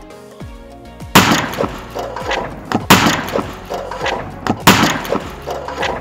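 A firecracker blast inside a microwave oven: a sharp bang about a second in with glass and metal breaking apart, then more loud cracks, over electronic background music.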